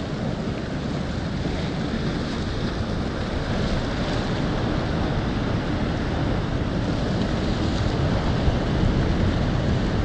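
Ocean surf washing in and breaking against a stone sea wall: a steady rushing noise that grows a little louder toward the end.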